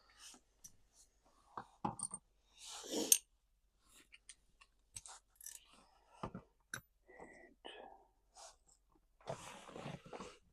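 Hand work on the car's interior trim and fasteners: scattered clicks, knocks and rustling from tools and plastic parts being handled. There is a sharper knock about three seconds in.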